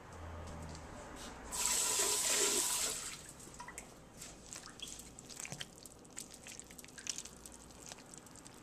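A short hiss like running water, then a wooden spoon stirring soup and tortilla strips in a slow cooker: scattered soft wet squishes and light knocks of the spoon.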